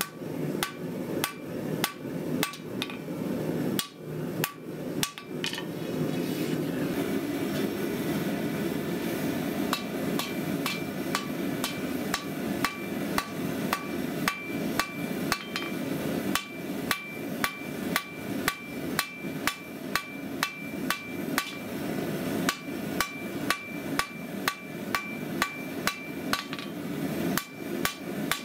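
Hand-hammer blows on red-hot 5160 steel against an anvil, in a steady rhythm, each with a short metallic ring, as the tang of a sword blade is drawn out. A steady rushing noise comes in underneath about six seconds in.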